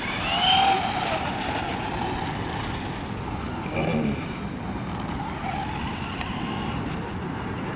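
Electric motor of a Traxxas 4x4 RC car whining, rising then falling in pitch about half a second in as the car speeds up and slows, with a fainter whine again later, over a steady rushing background.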